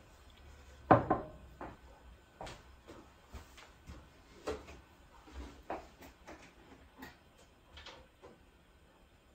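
Off-camera handling noises: a sharp knock about a second in, then a scattered series of lighter clicks and taps, like things being moved and set down.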